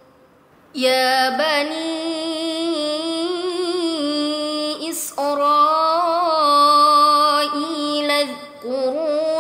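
A young woman's voice reciting the Quran in melodic murottal style: long held notes with ornamented, wavering pitch. It begins about a second in, with short breath pauses about five and eight and a half seconds in.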